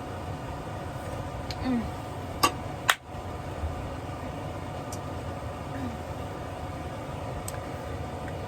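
Steady mechanical hum with a faint murmur, then two sharp clicks about half a second apart near the three-second mark.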